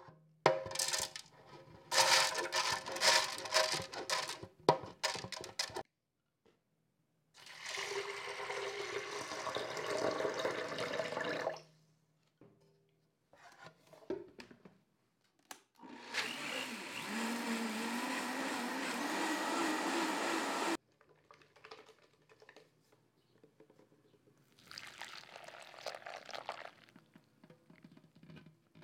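An electric blender runs in three bursts: two long runs and a short one near the end. The last long run has a rising tone and stops sharply. Before them comes a stretch of dense rattling and clicking, like hard dry pieces being tipped or shaken.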